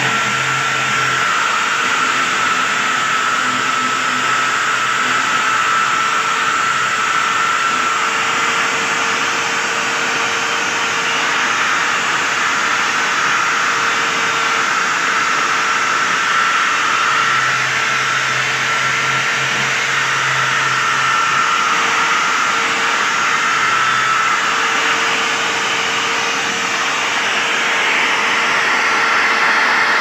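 Angle grinder with a wire brush running steadily with a high whine, scouring rust off the sheet-metal edge of a refrigerator cabinet to take it down to bare metal before repainting.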